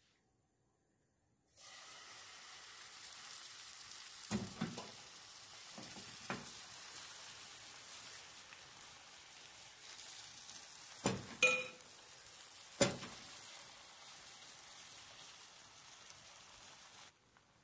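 Crepe batter sizzling steadily in a hot oiled frying pan as it sets, starting abruptly about a second and a half in and cutting off shortly before the end. A few sharp knocks sound over it, about four, six, eleven and thirteen seconds in.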